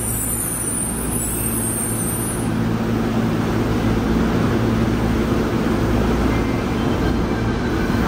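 Yokohama Municipal Subway Blue Line train with a Mitsubishi IGBT-VVVF drive pulling into an underground platform and slowing, a steady running rumble of the train on the rails.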